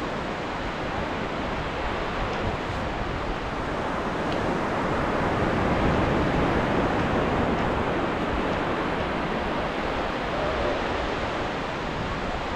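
Ocean surf: a steady wash of breaking waves that swells to its loudest about halfway through and then eases back.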